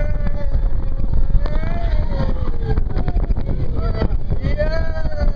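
Family roller coaster train running along its steel track: a steady rolling rumble with wind on the microphone, and a high whine that wavers slowly up and down.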